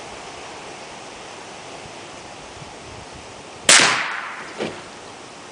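A custom 9mm Benjamin Discovery PCP air rifle fires one shot: a single loud, sharp report that rings off quickly, followed about a second later by a second, fainter crack. A steady background hiss runs underneath.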